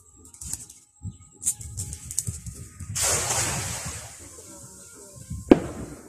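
A thrown cast net landing on the river: its weighted rim hits the water in a sudden spattering splash about halfway through, fading over about a second. A single sharp knock comes near the end.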